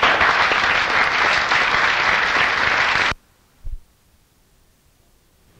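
Audience applauding at the close of a lecture, a dense even clapping that cuts off suddenly about three seconds in, followed by near silence and a single soft low thump.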